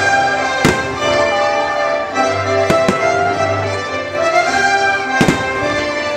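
Orchestral show music with strings playing over a fireworks display, punctuated by sharp firework bangs: one under a second in, two close together near three seconds, and one just after five seconds.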